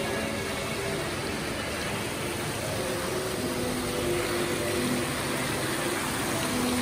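Indoor fountain's water jets falling and splashing steadily into the stone basin, a continuous even hiss of water.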